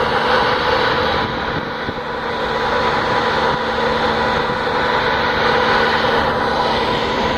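A ferry's engines and machinery running, a steady mechanical hum with a few held tones, dipping slightly about a second in.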